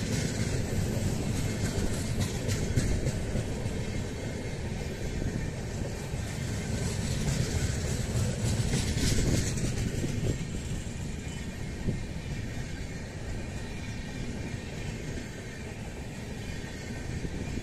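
Indian Railways LHB passenger coaches rolling past on the track: a steady rumble of steel wheels on the rails with rattling clicks. It swells louder for a few seconds in the middle.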